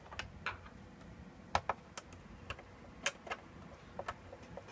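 Light, irregular clicks and taps of a screwdriver working against a cassette deck's plastic and metal chassis, about ten scattered clicks.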